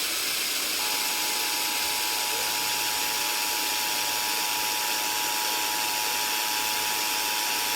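Emergency Alert System two-tone attention signal: two steady tones (853 and 960 Hz) sounding together, starting about a second in, over a constant radio static hiss. This is the alert tone that heralds a severe thunderstorm warning.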